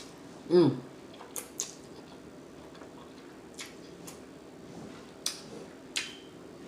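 Wet mouth sounds of chewing creamy pasta with shrimp and chicken: scattered sharp lip smacks and mouth clicks, a second or two apart. One short vocal sound, falling in pitch, about half a second in.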